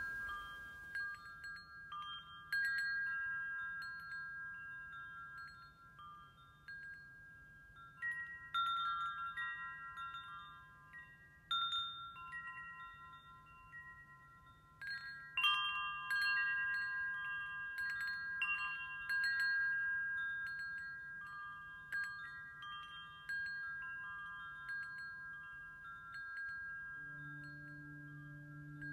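Metal tube wind chimes ringing, the striker hitting the tubes at irregular moments so their clear tones overlap and fade slowly. A low steady tone comes in near the end.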